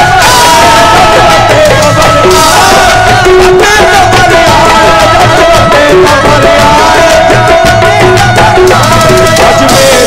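Live qawwali music, loud: harmonium and hand drums keeping a steady beat under a singer's long, wavering held notes.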